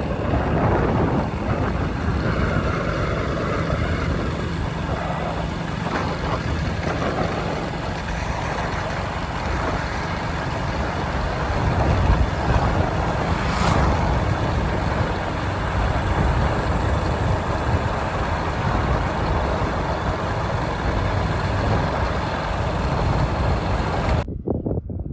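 A motor vehicle's engine running steadily, with rushing noise, cutting off abruptly near the end.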